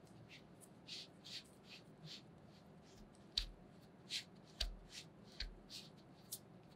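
Fingers pressing and pinching shortcrust tart dough into the fluted edge of a metal tart tin: faint, irregular soft crackles and taps, about a dozen, a few of them with a dull low knock.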